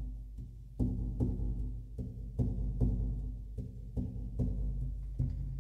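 Large hide frame drum (spirit drum) struck with a fur-covered beater in a steady beat of about two to two and a half strokes a second, each stroke a low, booming ring. The hide is loose from damp weather.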